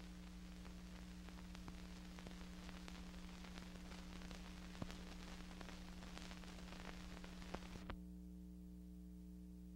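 Hiss and scattered crackle from an old archival film transfer over a steady mains hum. Near the end the hiss and crackle cut off suddenly, leaving only the hum.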